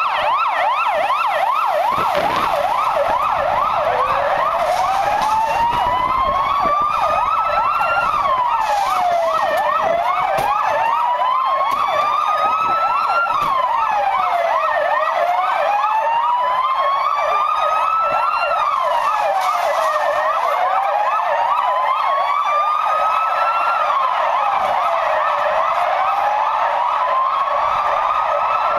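Police van sirens sounding together: one in a rapid yelp throughout, and from about four seconds in a second in a slow wail that climbs over about four seconds and drops back quickly, over and over.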